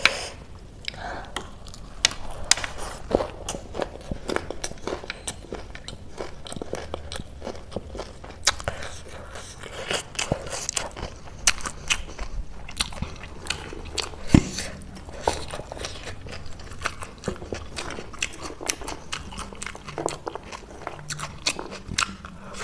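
Close-miked crunching and chewing of a crisp lettuce wrap filled with Wai Wai instant-noodle chaat: wet mouth sounds broken by many sharp crunches at irregular intervals, one especially loud about 14 seconds in.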